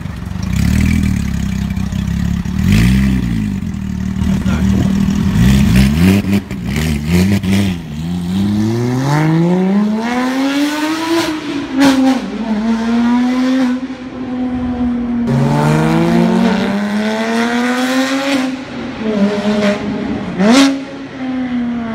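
Porsche 997 GT3 flat-six through an Fi Exhaust catless pipe and valved muffler: a few quick throttle blips over a loud idle, then the car is revved hard while driving, the engine note climbing and dropping back several times through the gears, with a short sharp rev near the end.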